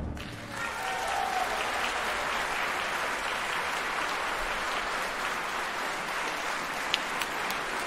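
Concert-hall audience applauding steadily. The applause builds up about half a second in, as the orchestra's final chord dies away.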